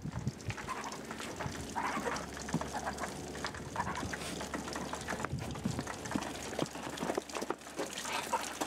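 Cornish Cross meat chickens clucking now and then, with short knocks and scuffs.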